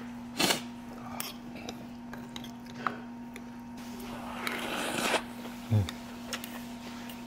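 Utensils clicking against dishes at a meal table, a few sharp clicks and a rustling scrape, with a low thump about two thirds through, over a steady low hum.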